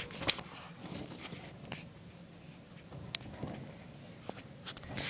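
A few scattered sharp clicks and taps, spaced about a second apart, over a quiet room.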